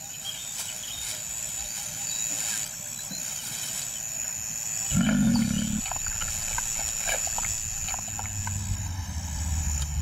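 A lion gives a short, low growl about halfway through, lasting about a second. Scattered small ticks follow, and a low steady rumble sets in near the end.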